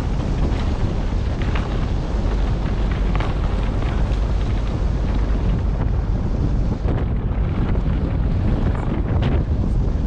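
Wind buffeting an action camera's microphone: a loud, steady low rumble with hiss over it.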